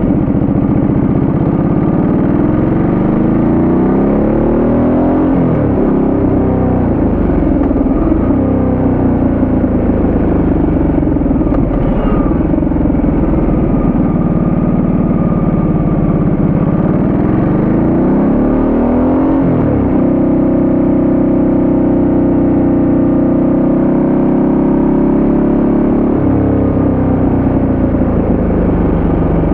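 Ducati Multistrada 1200S's 1198 cc L-twin engine under way through a string of bends. The revs climb and then drop sharply twice, about five and twenty seconds in, then run fairly steady, with a further change in pitch near the end.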